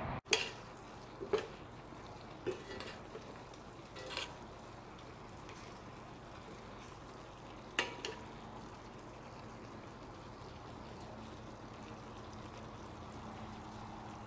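A few short metallic clinks of a spoon against a stainless-steel pot, the sharpest just before 8 seconds in, over a faint steady hum.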